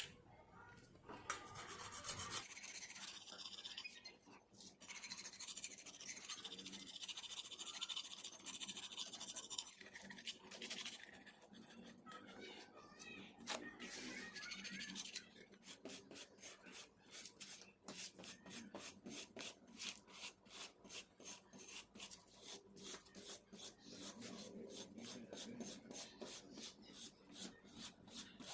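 Hand scrubbing of softened old paint off the scooter's metal wheel drum after paint remover: uneven rubbing and scraping at first, then from about halfway steady back-and-forth strokes, about two or three a second.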